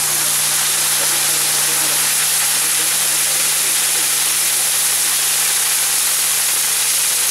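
Steady, loud hiss of firework fountains spraying showers of sparks from a castillo, a cane fireworks tower.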